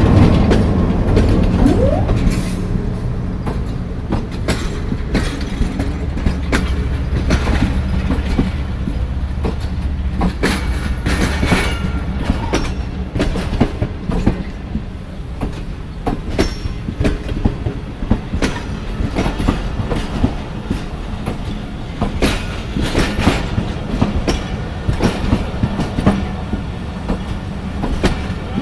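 Passenger train coaches rolling past as the train pulls out of the station, their wheels clattering over the rail joints in a dense, uneven run of clicks over a steady low rumble. The locomotive's rumble fades over the first few seconds, and a faint wheel squeal comes about halfway through.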